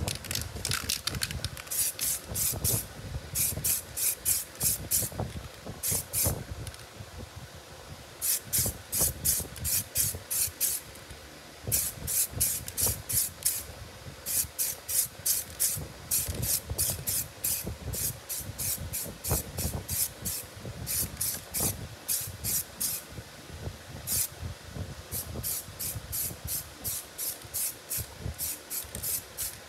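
Aerosol can of spray primer spraying in short rapid bursts, about three or four a second, in runs of a few seconds with brief pauses between them.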